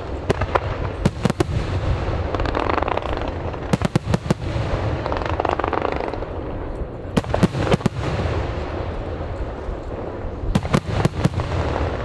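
Aerial fireworks display: clusters of sharp bangs from bursting shells come every few seconds, over a continuous crackling hiss and a low rumble.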